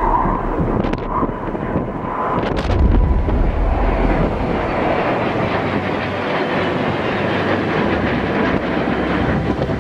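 Jet engines of a formation of Rafale fighters flying overhead, a steady noise, with wind buffeting the microphone.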